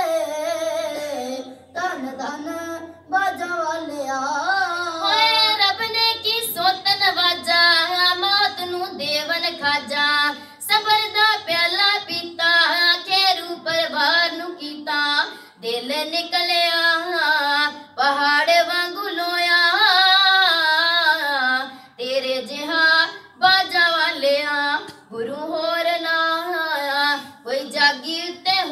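A child singing solo into a microphone, a melodic line sung phrase by phrase with short breaks for breath.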